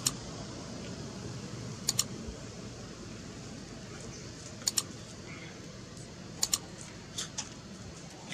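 Mouse-click sound effects from a like-and-subscribe button animation: sharp clicks in quick pairs, four pairs about two seconds apart, then two softer clicks near the end, over a steady low background hum.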